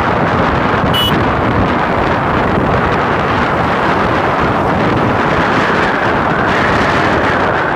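Wind buffeting the microphone of a phone carried on a moving motorbike, a steady rush mixed with road and engine noise. A brief high tone sounds about a second in.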